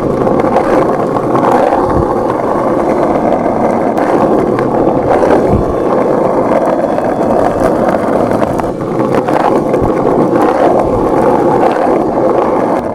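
Skateboard wheels rolling steadily over rough ground, a continuous loud rolling noise, with a few low knocks along the way. The bearings have just been lubricated with silicone lubricant.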